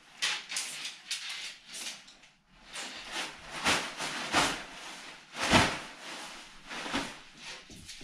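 Nylon fabric of an MSR Advance Pro 2 tent rustling and swishing in repeated bursts as it is shaken and handled with its poles, with a thump about five and a half seconds in.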